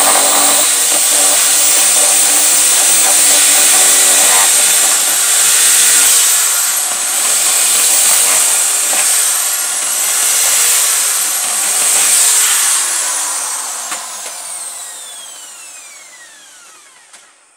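Corded electric drill boring into a wooden plank, its motor speed swelling and dipping about every one and a half seconds. About twelve seconds in the trigger is released and the motor whines down to a stop.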